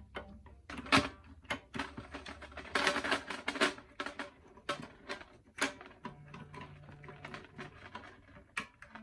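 Irregular clicks, taps and rattles of snare drum hardware being handled and adjusted, with a short scraping rustle about three seconds in.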